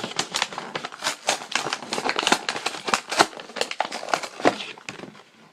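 Crinkling and crackling as a piece of waxed lacrosse mesh and its bag are handled: a rapid, uneven run of small crackles that dies away near the end.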